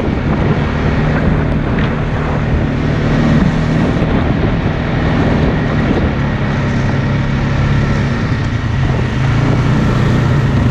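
ATV engine running steadily while riding along a sandy dirt trail, with wind buffeting the microphone.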